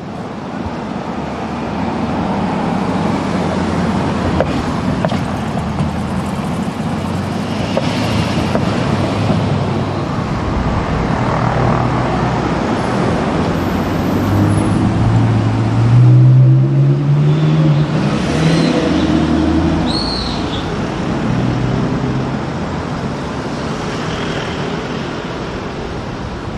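Audi RS6's twin-turbo V8 engine running as the car drives through city traffic. Just past the middle it rises in pitch as the car accelerates past close by, which is the loudest moment.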